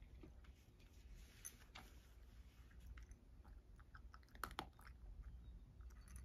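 Cat eating dry kibble: faint, irregular crunching and clicking, with a louder cluster of crunches about four and a half seconds in.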